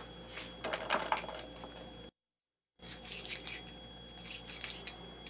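Faint clicks and light rattles of small brass cartridge cases being handled at a reloading bench. The sound cuts out completely for a moment a little past two seconds in.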